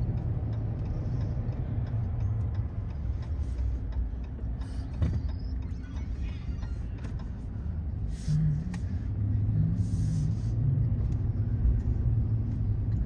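Car driving, heard from inside the cabin: steady tyre and engine noise, mostly low in pitch, with a few brief louder moments.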